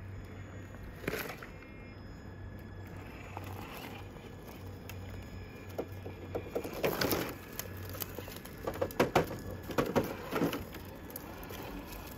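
Traxxas TRX-4 scale RC crawler driving over rock, its tyres and chassis knocking and scraping on stone, with a run of loud knocks in the second half over a faint steady hum.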